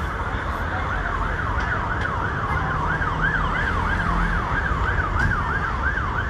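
Emergency vehicle siren on a fast yelp, its pitch rising and falling about twice a second, over a steady low rumble.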